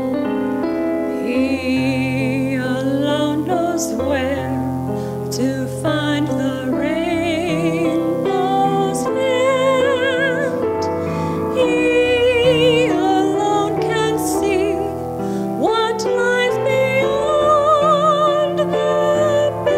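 A woman singing a solo with strong vibrato, held notes gliding up and down, over a piano accompaniment.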